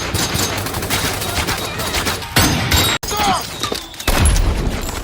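Dense, overlapping WWII small-arms gunfire from a film battle scene, many rapid shots. It breaks off abruptly about three seconds in, then a heavy low boom comes about a second later.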